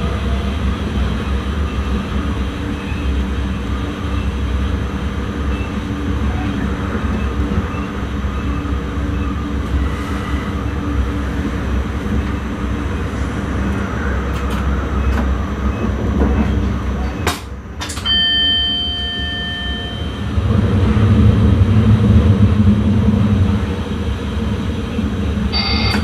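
Intercity train running, heard from inside the driving cab as a steady low rumble of motors and wheels on the rails. About two-thirds of the way in come two sharp clicks, then a steady electronic beep lasting about two seconds, followed by a louder stretch of low rumble.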